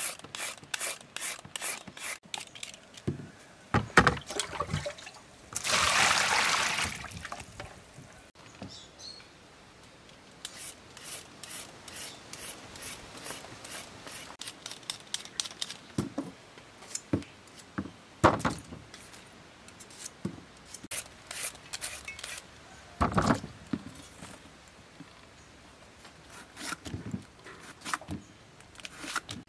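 Repeated short rasping strokes of a julienne peeler drawn down a raw carrot, shaving it into thin strips. About six seconds in there is a louder noisy burst lasting a second or so, and about 23 seconds in there is a knock.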